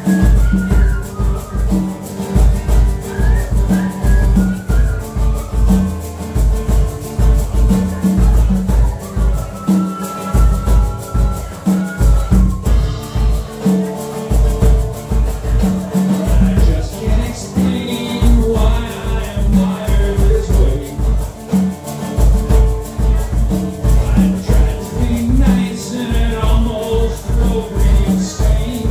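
Live acoustic guitar strumming over a conga drum keeping a steady beat, in an instrumental stretch of a song.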